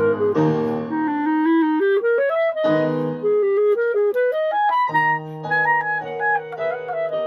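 Clarinet playing a melody of short stepped notes that climbs in pitch twice, over sustained lower accompaniment chords.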